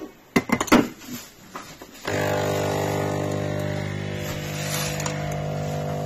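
A few clicks, then about two seconds in the Xiaomi Scishare Mini S1201 capsule coffee machine's pump starts and runs with a steady hum as it brews.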